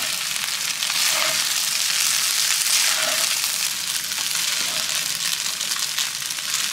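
Fried rice sizzling in a hot wok as a spatula stirs and turns it: a steady frying hiss. This is the final stir of the finished dish before it comes off the heat.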